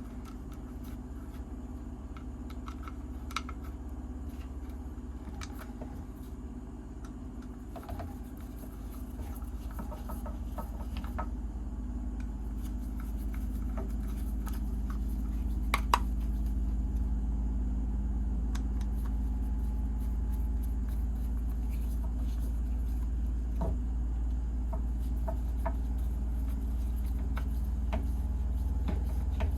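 A steady low engine-like drone that grows louder through the first half and then holds, with scattered light clicks and clacks of a quick-grip bar clamp being worked after oiling.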